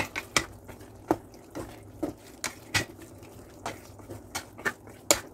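Utensil stirring chicken adobo in a rice cooker's pot, making irregular clicks and knocks roughly three a second.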